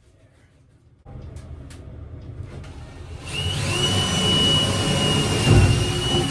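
An electric motor runs with a steady rushing noise. About three seconds in it gets louder and a steady high whine joins it, then it cuts off suddenly.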